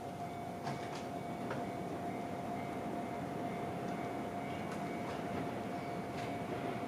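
Electric train running on the JR Tokaido Line: a steady rumble with a constant whine and scattered light clicks.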